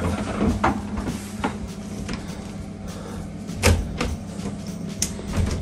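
Handling of a glass shower-cubicle door: light clicks and knocks, with one louder knock about two-thirds of the way through, over a steady low hum.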